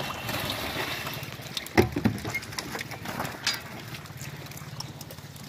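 Knocks and clatter of a plastic drum of fish being set onto the wooden pallet of a rope-hung balance scale, with one sharp loud knock a little under two seconds in. A steady low hum runs underneath.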